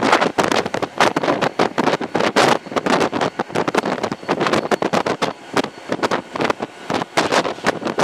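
Wind buffeting the microphone in irregular gusts, held out the side of a moving GT22 diesel locomotive, with the locomotive's running noise underneath.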